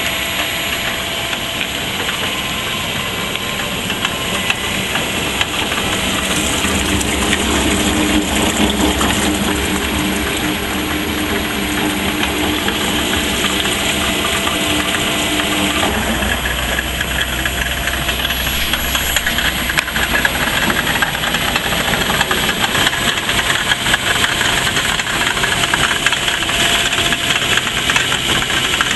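A car engine running steadily, turning a driveshaft off its front wheel hub that spins the blades of a drum-type clay slurry mixer, with a constant hiss over the machine noise. About halfway through the sound shifts: a steady hum drops out and a deeper rumble takes over.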